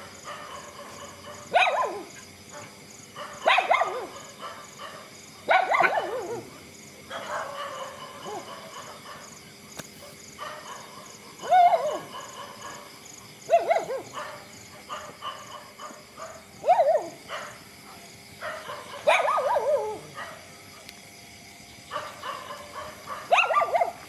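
A dog barking repeatedly, short single barks about every two seconds, with a longer pause partway through.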